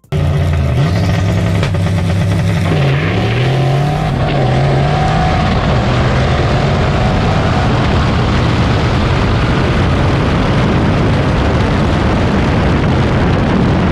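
Fox-body Ford Mustang running hard down a drag strip. Its engine note dips sharply about three seconds in and again a little later, then sinks under a steady rush of wind and road noise on a camera mounted outside the car by the front wheel.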